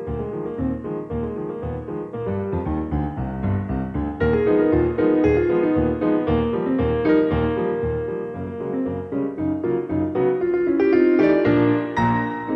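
Background piano music, a continuous run of notes with no other sound standing out.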